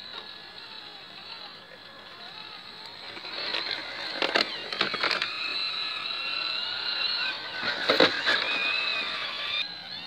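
Traxxas TRX-4 RC crawler's electric motor and geartrain whining, the pitch shifting up and down with the throttle. A few sharp knocks come about four seconds in and again about eight seconds in as the truck climbs over rock.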